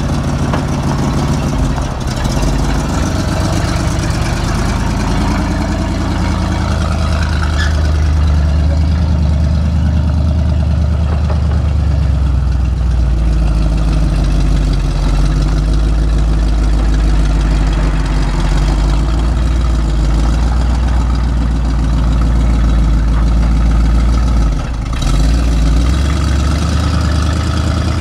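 1987 Chevrolet C70 dump truck's gasoline engine running steadily as the truck drives slowly, a continuous low drone, with a brief dip about 25 seconds in.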